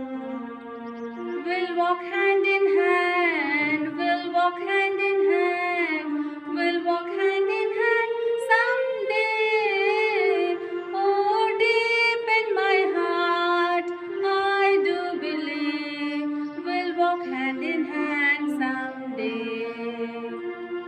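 A woman singing a slow, melodic song with long held, wavering notes over sustained instrumental accompaniment; the accompaniment plays alone for about the first second and a half before the voice comes in.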